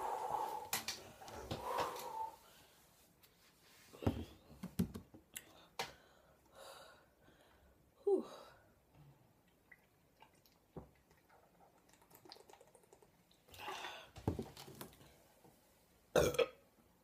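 A woman burping over and over after drinking cola, starting with one long, loud belch. Shorter burps follow every few seconds, one of them falling in pitch about eight seconds in and a short loud one near the end.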